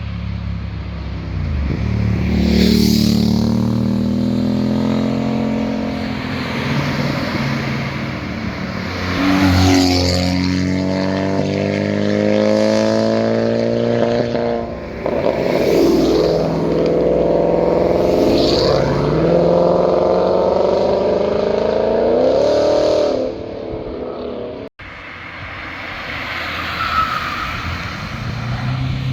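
Car engines accelerating hard past, exhaust notes climbing in pitch again and again with short breaks between climbs, as on upshifts. About 25 seconds in the sound cuts off abruptly, and a quieter car engine follows.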